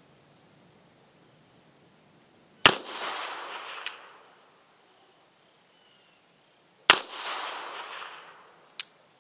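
Two shots from an Austrian M1898 Rast & Gasser 8mm revolver, about four seconds apart, each followed by a decaying echo. A sharp click comes about a second after each shot, the hammer being thumb-cocked for the next single-action shot.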